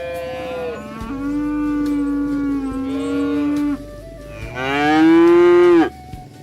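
Cattle mooing: three calls in a row. A short one, then a long, steady one, then a last call that is the loudest and drops in pitch as it ends.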